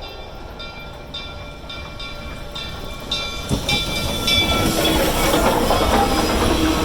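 A train drawing closer, with a regular beat about twice a second that grows louder. From about four seconds in it becomes a steady, loud running noise as the train comes up close.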